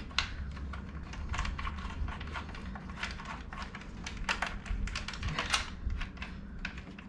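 Allen key working the small bolts on a motorcycle's fuel-tank mount bracket: a run of light, irregular metal clicks and ticks as the key is turned and refitted in the bolt heads.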